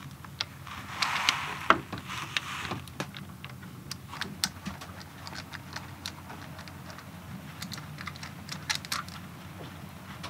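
Scattered small clicks and taps of a hand tool and small metal parts on a sailboat's inboard diesel engine as it is put back together after a thermostat fault, over a faint steady low hum.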